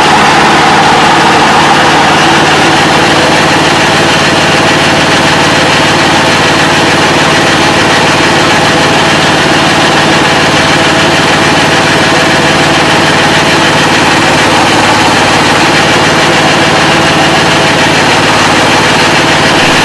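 22 HP diesel engine of a KL-230A pellet mill running steadily at full speed, clutched in and driving the die and rollers while material is fed in slowly.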